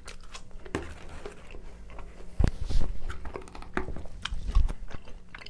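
A mouthful of pepperoni pizza being chewed close to a clip-on microphone: soft crunchy clicks, and from about two seconds in a few louder low thumps.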